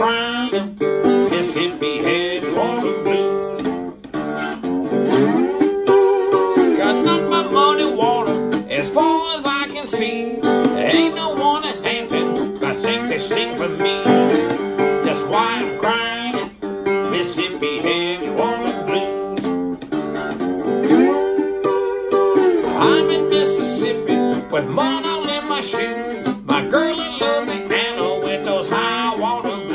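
Acoustic guitar played blues-style with a metal slide, fingerpicked notes gliding up and down in pitch.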